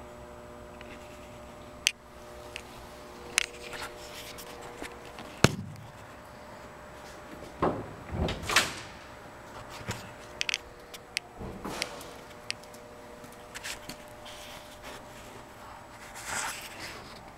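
Irregular knocks, clicks and scuffs of handling and moving around a car body, the loudest knock about five and a half seconds in, over a faint steady hum.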